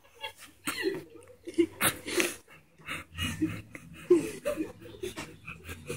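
People laughing and chuckling in short breathy bursts, mixed with a few fragments of speech.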